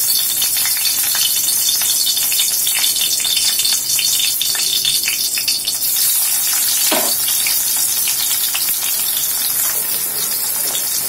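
Sliced onions and a dried red chilli dropped into hot oil in an iron kadai. The oil starts sizzling loudly the moment they go in and keeps up a steady, crackling fry as the onions crisp.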